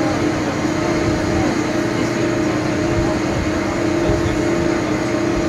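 Steady drone of a car ferry's engines and machinery: a constant hum over an irregular low rumble.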